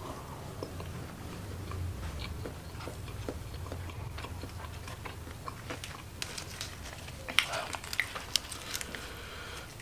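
Close-miked sounds of a person eating fried chicken: chewing with small scattered clicks, then several sharp crunchy bites in the second half.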